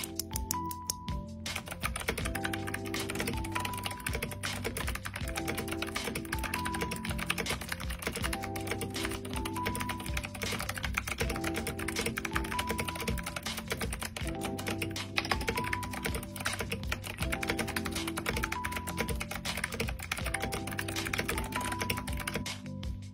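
Fast typing on a mechanical keyboard, a dense clatter of key strokes that starts about a second and a half in and stops just before the end, with background music under it.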